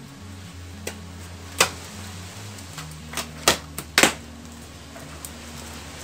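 A taped cardboard box being cut open and its flaps pulled apart, giving several sharp snaps and cracks of packing tape and cardboard. The loudest come about a second and a half in and again around three and a half to four seconds, over quiet background music with low sustained notes.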